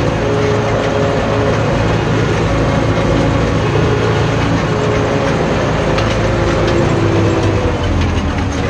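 Tractor diesel engine running steadily, heard from inside the cab.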